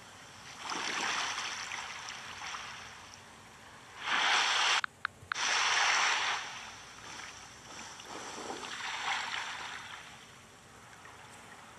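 Ocean wave ambience: water noise washing in and falling back in several slow swells, with a brief dropout about five seconds in.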